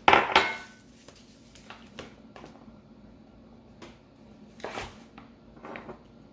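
Kitchen handling noise as flour is measured into a mixing bowl: a loud knock and clatter at the start, then a few light taps and two short scrapes near the end.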